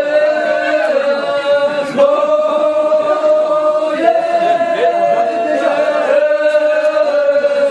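Chanting on one long held note that restarts about two seconds in and lifts slightly in pitch about four seconds in.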